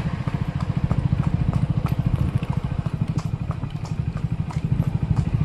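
An engine running steadily with a fast, even low pulse, with scattered sharp clicks over it.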